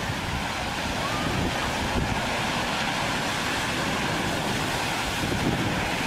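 Heavy surf breaking and washing up the shore, with wind buffeting the microphone in irregular gusts.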